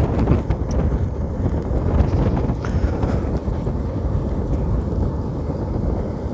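Wind buffeting the microphone of a moving motorcycle, with the Honda Shine 125's single-cylinder engine running steadily beneath it.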